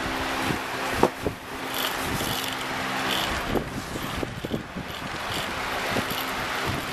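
Small electric motor of a battery-powered flutter-butterfly cat toy whirring steadily as it spins the butterfly on its wire, with scattered knocks, the sharpest about a second in.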